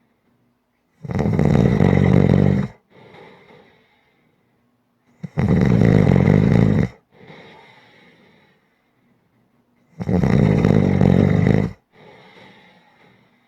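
Loud snoring: three long snores about four and a half seconds apart, each followed by a quieter breath.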